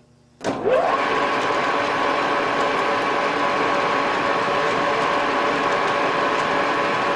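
Metal lathe switched on: the spindle spins up with a short rising whine about half a second in, then runs steadily with a constant motor and gear whine.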